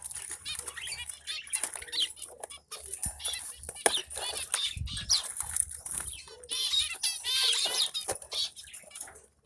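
Zebra finches calling: a rapid string of short, high chirps with brief wing flutters and clicks, busiest as a dense run of calls about two-thirds of the way in.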